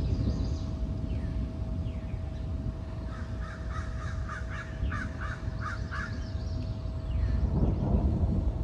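A crow cawing: a quick run of about eight short, harsh caws about three seconds in.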